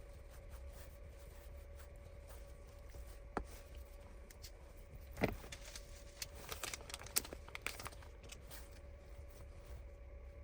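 Faint scattered clicks and light scraping from small hand tools working on a phone's frame as old battery adhesive is cleaned off, over a steady faint hum. Two sharper clicks come about three and five seconds in, and a run of small clicks a little later.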